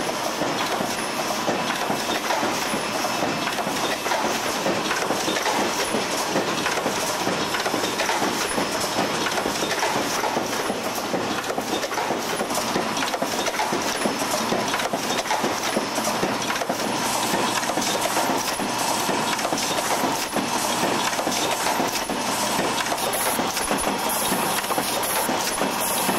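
Paper-converting production machinery running: a steady, dense mechanical clatter of fine rapid clicks.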